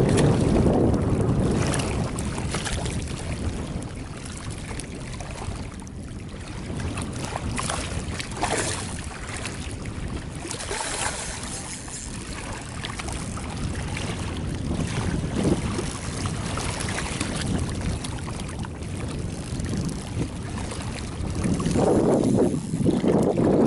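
Wind buffeting the microphone as a low, gusty rumble, strongest at the start and again near the end, with scattered short scratchy handling sounds.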